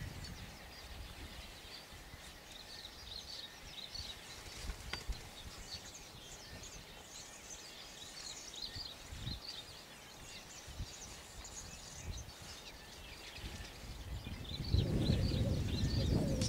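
Outdoor ambience: many faint, short, high bird chirps over irregular low rumbles. Near the end a louder low rushing noise sets in.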